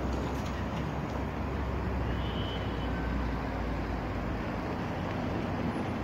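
Steady motor-vehicle running noise, a low engine rumble under road and wind hiss, as heard riding in a minibus. The low rumble eases about two-thirds of the way through.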